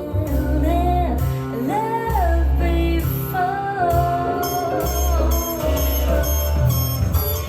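A recorded song, a singer over guitar and bass, playing back from cassette tape on a hi-fi cassette deck.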